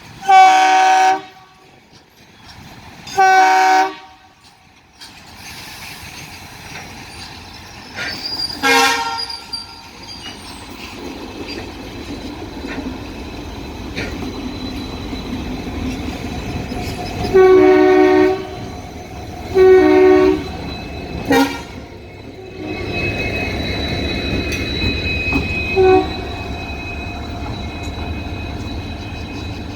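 Diesel locomotive multi-tone air horns from an EMD and an Alco arriving in parallel: two blasts of about a second near the start, a short one about nine seconds in, two more blasts and a short toot around the middle, and another short toot near the end. Under them the rumble of the locomotives and train grows steadily louder as they come in.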